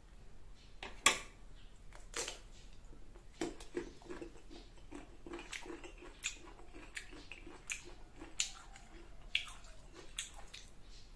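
A crunchy bite into a slice of raw green Indian mango, the loudest crunch about a second in, followed by a second crunch and then close, rhythmic chewing with wet mouth clicks.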